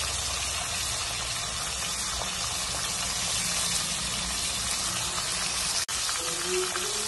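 Hilsa fish heads frying in hot oil in a karai, a steady sizzle, with a sudden brief break just before six seconds in.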